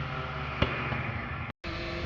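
A car's engine and exhaust fading away just after it passes, with one sharp crack about half a second in. Near the end the sound cuts out for an instant and a distant car engine carries on with a steady low drone.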